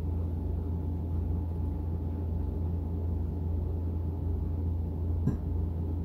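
A steady low hum, with a single knock about five seconds in as a stainless steel tumbler is set down on a table.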